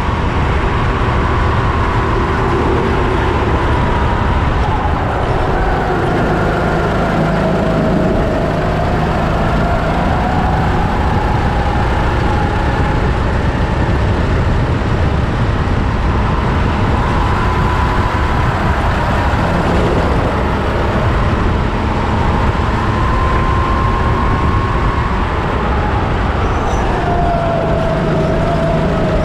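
Onboard sound of a Sodi rental kart racing: its engine note rises and falls over and over as the driver lifts and accelerates through the corners, over a constant low rumble.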